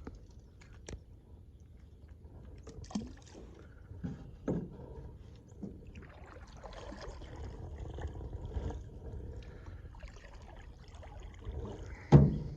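Low steady outdoor rumble with scattered light knocks and faint water sounds, and one loud knock about twelve seconds in.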